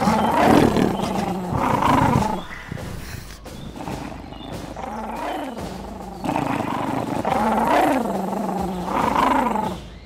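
Lion growls and roars, in repeated snarling calls: loud for the first two seconds or so, quieter in the middle, then loud again from about six seconds in.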